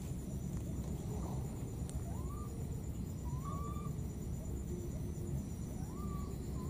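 Wetland ambience: a steady low rumble with a faint high insect drone. Over it come four faint short calls that each rise in pitch and then hold, in two pairs.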